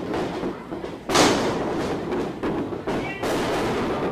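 A wrestler's body slams onto the wrestling ring's canvas with one loud thud about a second in. A steady crowd din with brief high shouts runs around it.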